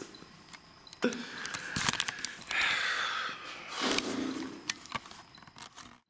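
Handling noise close to the microphone: rustling and scraping with scattered sharp clicks, as the camera or clothing is moved. It cuts off suddenly at the end.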